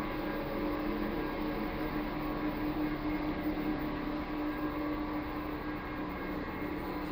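Commercial kitchen equipment running with a steady hum and hiss, a constant low tone underneath.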